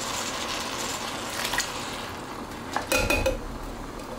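Metal tin cans knocking and clinking against each other and the countertop as they are handled and set down, with a cluster of sharp ringing clinks about three seconds in. Under it, a soft sizzle from the pot of tomatoes that fades in the first half.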